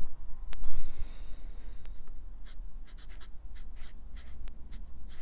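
Felt-tip marker pen writing: a sharp tap about half a second in, one longer drawn stroke, then a quick run of short scratchy strokes as letters are written.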